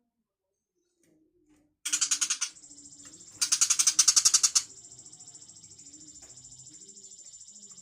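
Tiger shrike (cendet macan) giving a harsh, fast-pulsed chattering call, starting about two seconds in. Two loud bursts, the second about a second and a half after the first, are joined and followed by a softer steady chatter.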